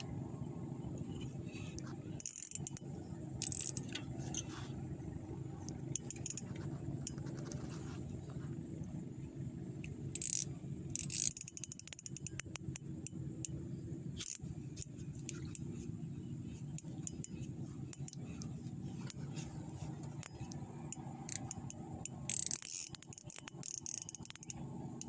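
Spinning-reel fishing tackle being handled while the line is snagged: scattered light clicks and metallic rattles, in clusters, over a steady low hum.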